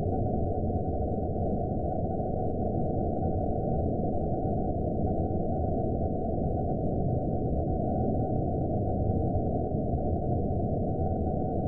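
Horror-film ambience sound effect: a steady, low, muffled noise drone with a faint thin high tone held above it, unchanging throughout.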